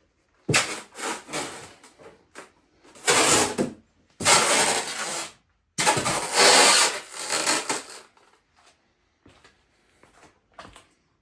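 Ratchet wrench with a 17 mm socket tightening a wheel bolt, in four bursts of a second or two each with short pauses between, then a few light ticks.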